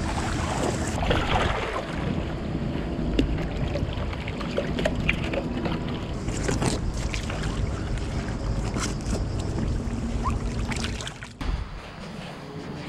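Wind buffeting the microphone and water lapping and splashing around an inflatable kayak as it is paddled, with a low steady hum underneath. About eleven seconds in it drops to a quieter background.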